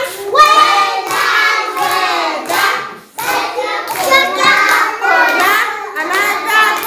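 Group of young children singing together in chorus, with hands clapping along. The singing breaks off briefly about halfway through, then carries on.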